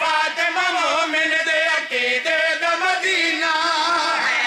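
Men singing a devotional verse together in a melodic, chant-like style: a zakir's sung recitation joined by the men beside him, amplified through microphones.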